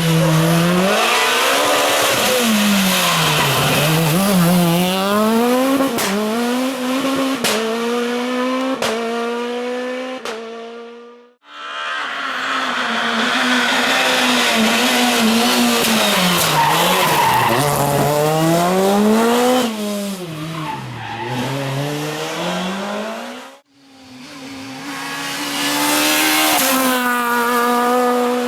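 Naturally aspirated four-cylinder rally car engine at high revs, its pitch climbing and dropping sharply again and again through gear changes and lifts, with several sharp cracks in the middle of the first clip. The sound cuts off abruptly twice, once about 11 seconds in and again about 23 seconds in, each time switching to another run.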